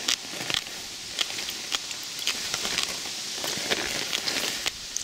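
Leaves and blackberry canes rustling, with many small crackles and snaps as a hand pushes through the bushes picking berries.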